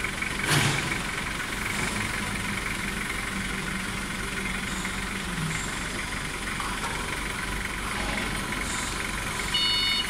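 Hydraulics of a battery-electric double-deep reach truck running as its pantograph forks extend at full mast height: a steady hum with a single clunk about half a second in. Near the end a pulsing warning beeper starts, sounding in short repeated bursts.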